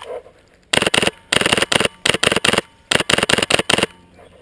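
Polar Star PR-15 air-powered airsoft rifle firing in short bursts of sharp cracks, about ten shots a second, four bursts with brief pauses between them.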